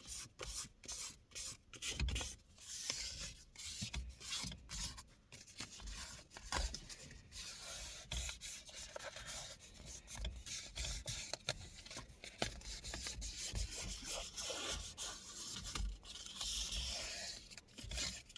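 Fine 120-grit sandpaper rubbed back and forth over a leather steering wheel rim in many short, irregular strokes. This is light sanding to knock down raised fibres after the leather binder has dried.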